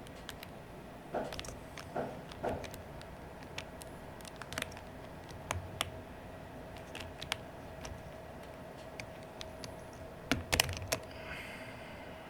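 Irregular plastic clicks and clacks of keycaps being pried off an Aula F99 Pro mechanical keyboard and set down, with the loudest cluster about ten seconds in. A faint steady hum sits underneath.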